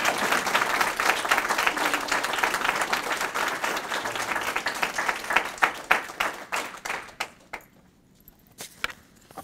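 Audience applauding. The clapping is dense at first, thins out after about six seconds, and dies away to a few scattered last claps near the end.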